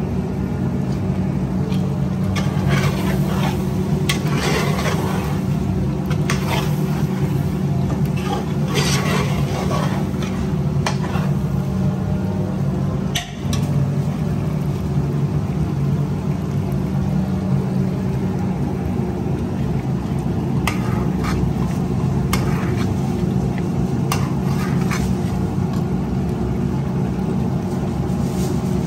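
Steady low hum and rumble of a commercial kitchen with the gas burners lit and curries simmering, with scattered clinks and scrapes of metal ladles against metal pans.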